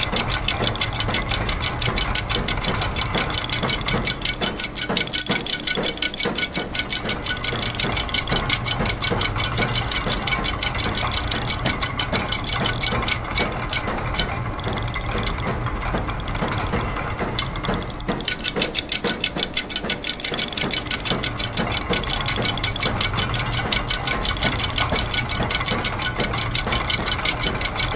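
Layered loops of factory machine sounds: gears and ratchets clicking rapidly and continuously in an overlapping rhythm over a steady low hum.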